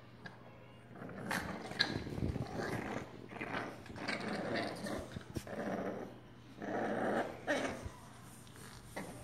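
Olde English Bulldogge puppies growling as they play, in a series of short rough bursts starting about a second in and dying down about eight seconds in.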